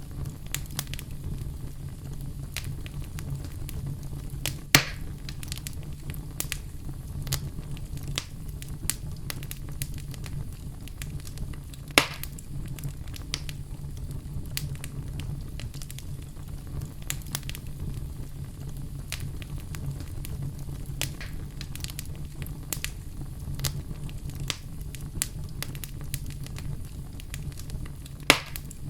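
Campfire crackling: a steady low rumble of burning wood with frequent small pops, and three louder snaps spread through the stretch.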